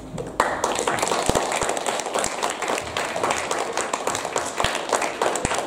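Audience clapping and applauding, starting suddenly about half a second in, with a few low thumps mixed in.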